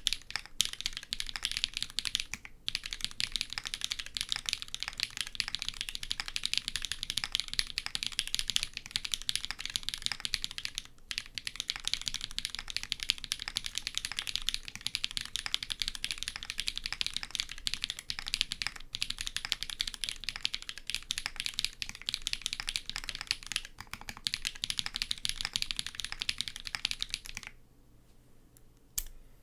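Fast, continuous typing on a Merisi Dodici custom mechanical keyboard with a full carbon-fibre plate, Cherry BCP switches and GMK keycaps. The keystrokes are dense, with a few brief pauses, and stop near the end.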